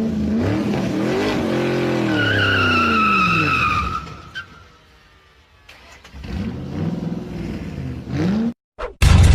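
Car engine revving up and down twice, with a high tyre squeal over the first rev. Loud music cuts in abruptly near the end.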